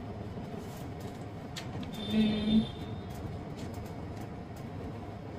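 Steady low room hum with a few faint clicks of paper being handled, and a short hummed voice sound about two seconds in.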